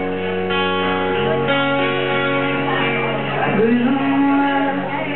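Live country band playing: an acoustic guitar strummed over an electric bass, with a woman singing at the microphone.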